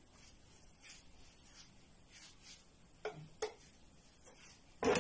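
Quiet handling of kitchen utensils and containers: faint scraping and rubbing, two light taps about three seconds in, and a sharper knock near the end.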